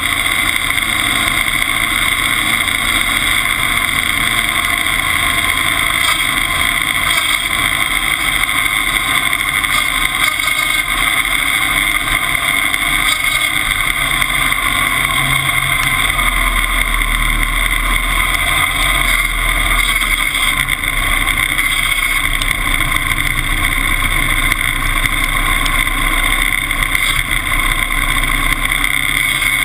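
Timberjack 201 skidder's engine running steadily under load while the skidder tows a crawler tractor, heard up close beside its exhaust stack. Its deep low rumble grows stronger about halfway through.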